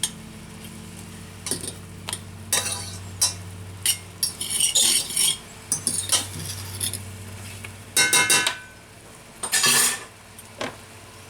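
A metal utensil scraping and clinking against a frying pan in irregular strokes as shrimp are stirred, with a steady low hum underneath.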